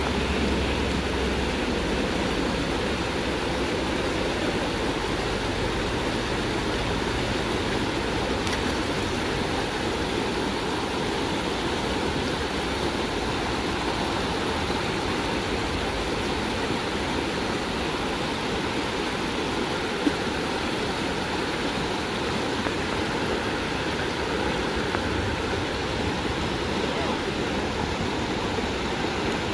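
Shallow river babbling and rushing steadily over rocks in a riffle, with one brief click about two-thirds of the way through.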